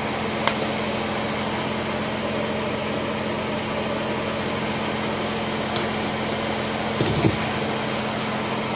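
Steady electrical hum with a constant hiss, broken by a few faint light clicks, the clearest about seven seconds in.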